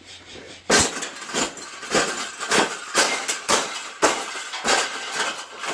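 Wire cage mesh being bent into a fold: a series of about ten sharp metallic knocks, roughly two a second, starting under a second in.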